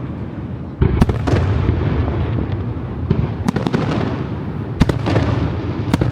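Aerial fireworks going off in quick succession: a continuous deep rumble of shell bursts, broken by sharp cracks about a second in, twice around the middle and again near the end.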